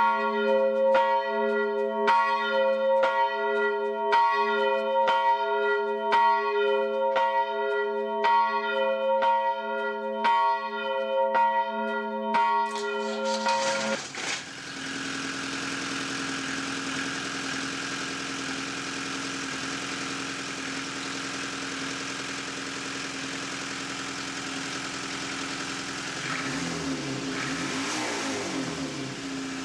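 A bell or bells struck in a steady rhythm, about one and a half strokes a second, each stroke ringing at the same set of pitches. About halfway through this gives way to the steady run of an engine or traffic, with its pitch rising and falling near the end.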